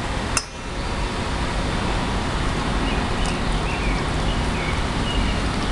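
Steady rushing background noise with no clear rhythm, with one sharp click about half a second in and a few faint, short, high bird chirps in the second half.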